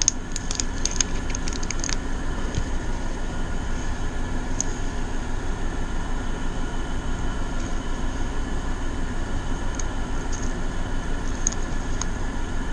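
Steady hum and whir of two room air conditioners, with a fast, even ripple in loudness. A few light clicks and taps in the first two seconds, with scattered single ones later.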